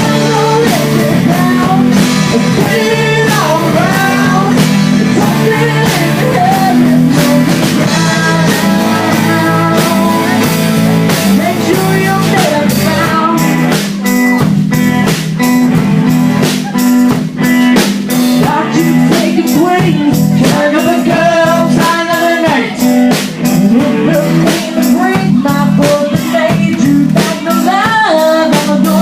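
Live band playing a blues-rock song on guitar, bass and drum kit, with a lead line that bends and glides in pitch over a steady beat.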